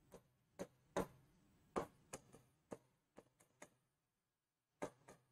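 Faint, irregular clicks and taps of a stylus pen on a writing screen during handwriting, about ten over a few seconds, with near silence between them.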